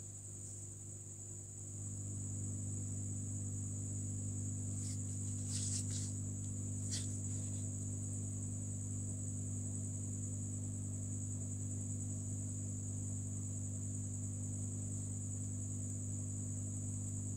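Hot-air rework station blowing on a phone's power IC: a steady low hum with a thin high whine, getting louder about two seconds in. A few faint clicks around the middle.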